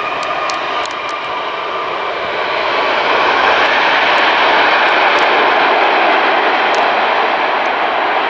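Engines of a landing jet airliner: a loud, steady rushing roar with a faint whine that fades in the first second or two, the roar swelling louder about three seconds in and holding.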